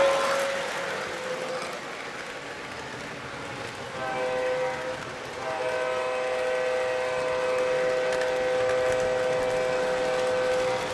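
Model train rolling along three-rail track while its onboard electronic sound unit sounds its horn. A short blast comes about four seconds in, then a long, steady multi-note blast is held from about five and a half seconds on.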